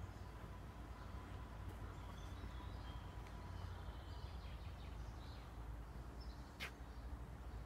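Faint bird chirps over a low steady rumble, with one sharp click near the end.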